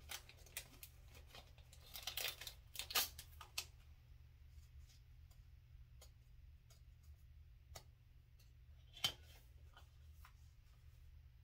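Small paper and plastic packaging items being handled and sorted by hand: a cluster of rustles and clicks about two to three and a half seconds in, then scattered faint ticks and one sharp click about nine seconds in.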